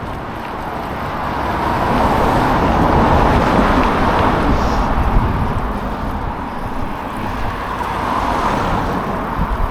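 Road traffic noise, like a vehicle passing by, swelling to a peak about three seconds in and easing, then rising again less strongly near the end.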